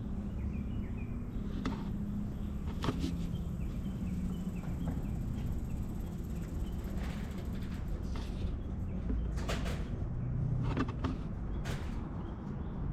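Scattered clinks and knocks of tools and parts being handled, one every second or two, over a steady low rumble.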